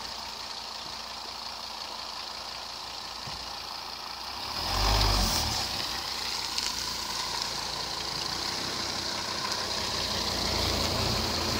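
Engine of a first-generation Mercedes-Benz Sprinter van running as it drives slowly out through tall grass. A low engine rumble swells about four and a half seconds in, then grows again near the end as the van comes close.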